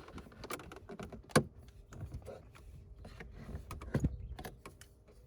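Plastic dashboard trim of a BMW E46 being pried off its pin clips with a body panel tool: scattered plastic clicks and scrapes, with a sharp click about a second and a half in and another near four seconds.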